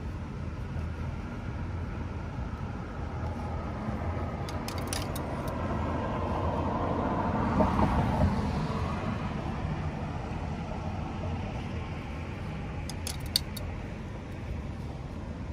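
A car drives past on a brick-paved street. Its tyre and engine rush swells to its loudest about halfway through, then fades back into a steady low traffic hum. Two brief clusters of light high clinks come a few seconds in and near the end.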